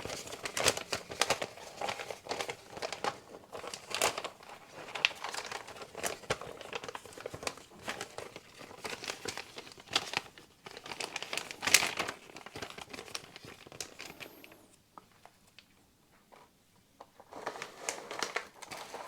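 Packaging being handled and unpacked, with irregular crinkling and rustling and some sharp crackles. It goes almost quiet for a few seconds near the end, then the crinkling starts again briefly.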